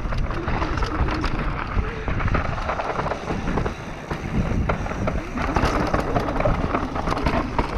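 Mountain bike descending a dirt forest singletrack at speed: wind buffeting the microphone and tyres rumbling over dirt and roots, with the bike rattling in many quick clicks and knocks.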